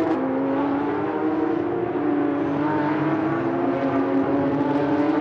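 Porsche GT3 Cup race car's flat-six engine at speed. Its note dips sharply right at the start, then climbs slowly and steadily as the car accelerates.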